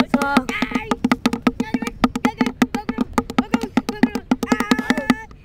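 An upturned plastic bucket, half-buried in sand, played as a drum with a stick: a quick, steady beat of about eight strokes a second, each ringing with the same low tone. Children's voices rise over it a few times.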